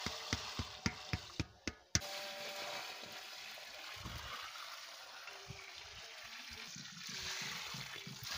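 Water pouring in a steady stream from a bucket onto a heap of dry clay lumps, splashing as it soaks in. A run of sharp clicks in the first two seconds.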